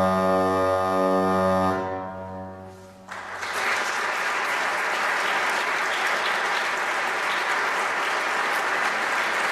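Historic pipe organ holding a closing chord with a strong low bass note, which stops about two seconds in and dies away in the reverberation. About a second later the audience breaks into steady applause.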